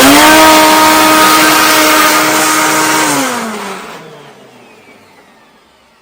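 1995 Hoover Encore Supreme upright vacuum's 7-amp motor with its broken original seven-blade fan, switched on and running loud with a steady howling tone. About three seconds in it is switched off and spins down, the pitch falling as it fades. The broken fan is why it sounds atrocious.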